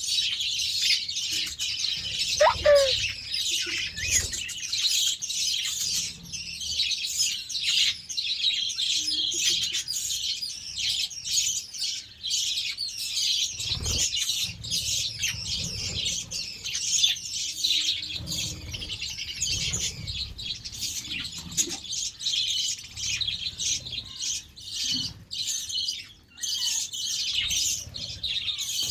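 A flock of budgerigars chattering and chirping without a break, many birds calling at once. There is a single short thump about halfway through.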